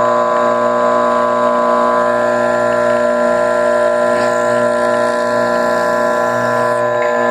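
Benchtop drill press's electric motor running at a steady speed, a constant whine with several steady tones.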